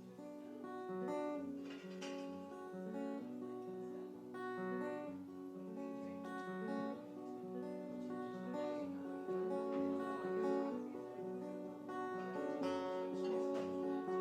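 Acoustic guitar strummed through a song's instrumental intro, a repeating chord pattern before the vocals come in; it grows louder in the first second.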